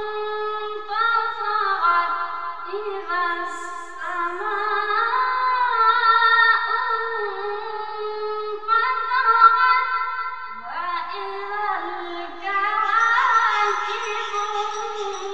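Melodic Quran recitation in Arabic: a single high-pitched voice chanting in long, held, ornamented notes that bend up and down, with short breaks for breath about four and ten seconds in.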